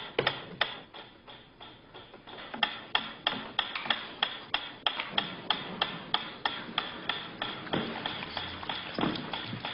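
Mechanical pendulum metronome ticking steadily, about three sharp ticks a second.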